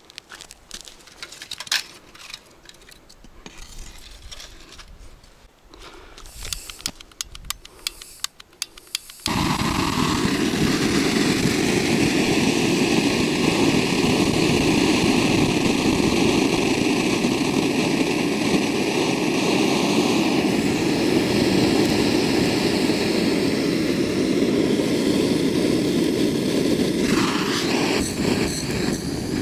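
Quiet knocks and a quick run of sharp clicks, then about nine seconds in a camping gas burner lights. From then on it runs with a loud, steady rushing noise.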